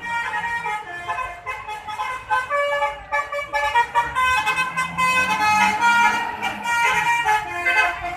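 Basuri multi-tone telolet air horn on a bus playing a quick melody of short pitched toots, several notes at once. A deeper tone swells and falls away in the middle.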